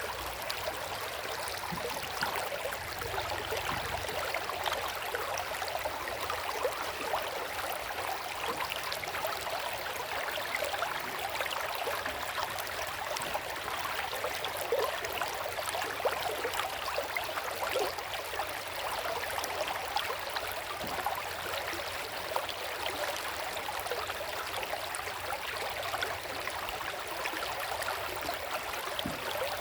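River water flowing: a steady rush with many small, quick splashes throughout.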